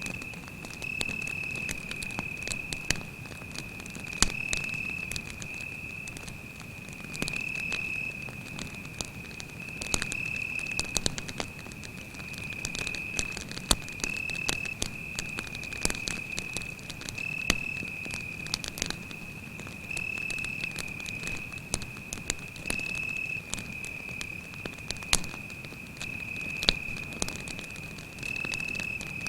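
Campfire crackling and popping, with several louder sharp pops, over a cricket's continuous high trill.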